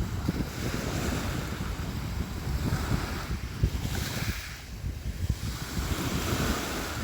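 Sea waves washing and splashing, one wash swelling about halfway through and then easing off, with wind buffeting the microphone as a gusty low rumble.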